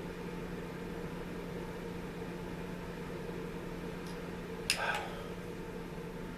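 Steady electrical hum in the workshop, with a faint tick and then a sharper click of a small part being handled just under five seconds in.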